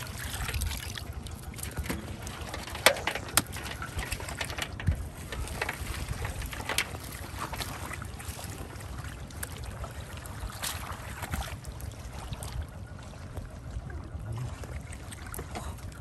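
Shallow muddy water sloshing and splashing as a plastic basket is scooped through mud and water weeds, with scattered sharp knocks and ticks, the loudest about three seconds in, over a steady low rumble.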